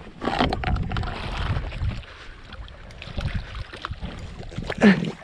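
A big snook thrashing and splashing at the water's surface beside the boat as it is netted, with wind on the microphone. A short shout near the end is the loudest moment.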